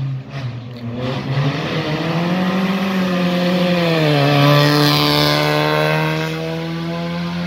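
A rally car's engine pulling hard as the car approaches and passes on a gravel road. The engine note rises, drops about three seconds in, then climbs again as the car drives away, over a hiss of tyres on gravel.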